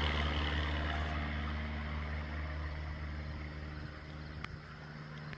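Propeller airplane engine droning steadily and slowly fading away, with a short click near the end.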